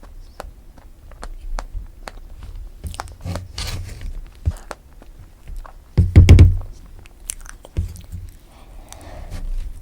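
Close-miked eating of strawberry cream cake: chewing and biting with many small wet mouth clicks. A louder, deep thump comes about six seconds in.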